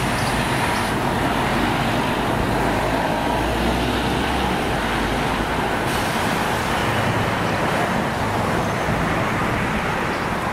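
City bus engine running with tyre noise as the bus drives past and pulls away, a steady mechanical rumble.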